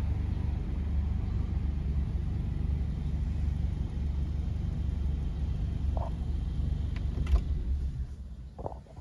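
Honda Accord idling, heard from inside the cabin as a steady low rumble, with a few small clicks late on; the rumble fades about eight seconds in.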